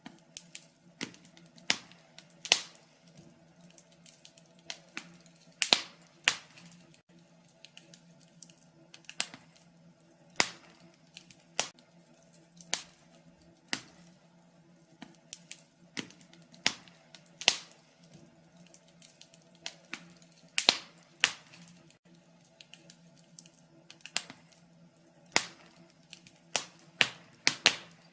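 Log fire crackling: irregular sharp pops and snaps, some loud, over a faint low hum.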